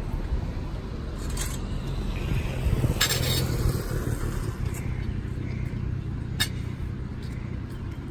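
Motor vehicle engine running on the road, with a low steady hum that strengthens in the middle. A brief scraping clatter comes about three seconds in, and there are a couple of sharp clicks.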